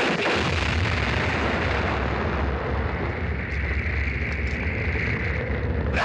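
Film soundtrack explosion: a sudden blast, then a steady low rumble and hiss of fire that carries on without a break.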